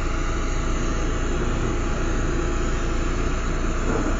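Lampworking bench torch burning with a steady rushing hiss.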